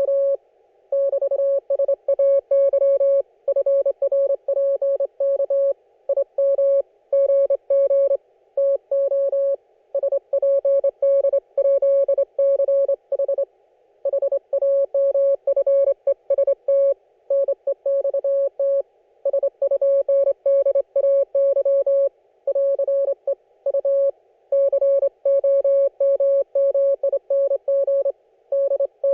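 Morse code (CW) received on an Icom IC-718 ham transceiver: a single-pitch beep keyed on and off in dits and dahs, sending continuous code. A soft hiss of band noise comes through the receiver's narrow filter in the gaps between characters.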